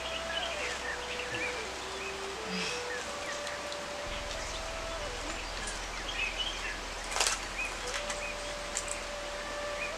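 Small birds chirping over steady outdoor background noise, with a soft, slow melody of long held notes underneath and one short rustling noise about seven seconds in.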